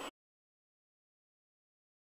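Silence with no sound at all: a steady noise stops abruptly at the very start.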